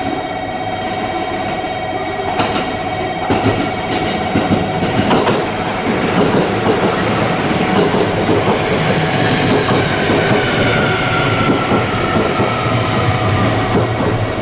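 JR Kyushu 811 series electric train running past close by, with steady wheel rumble and several sharp clicks over rail joints in the first few seconds. From about eight seconds in, a whine from the train slides steadily down in pitch.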